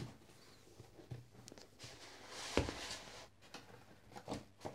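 Cardboard mailer box being handled and its tuck-in lid pulled open: faint scraping and rustling of cardboard with a few light taps and knocks, the loudest knock about two and a half seconds in.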